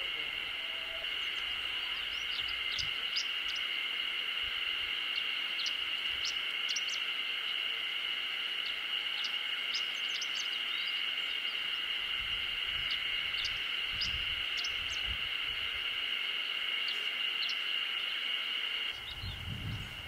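Chestnut-eared bunting singing: short, high chirping phrases that come every few seconds, over a steady high-pitched insect drone.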